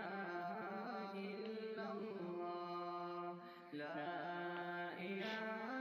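Slow, chant-like background music of long held melodic notes, with a brief drop in level about three and a half seconds in.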